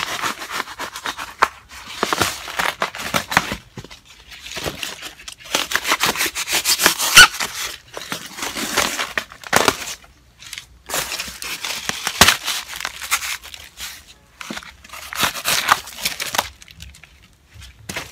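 Styrofoam box being cut and broken apart: about six spells of crackling and tearing, each a second or two long, with short pauses between.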